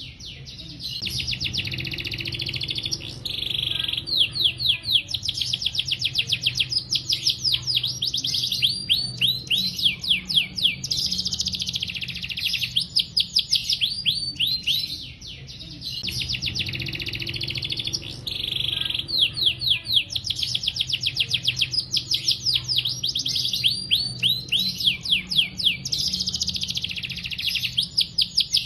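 Male domestic canary singing a long, near-unbroken song of fast trills and rolls, rapid runs of sweeping high notes, pausing only briefly near the start and about halfway through.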